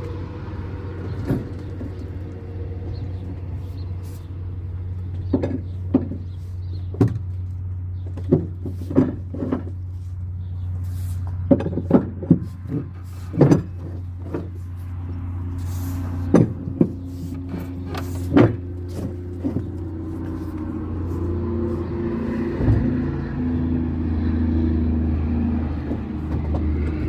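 A truck engine runs steadily with a low hum, overlaid by scattered sharp clicks and knocks. From about halfway through, a higher steady drone joins in.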